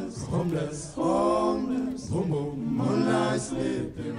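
Slow vocal chant of long held notes, several sung phrases with short breaks between them.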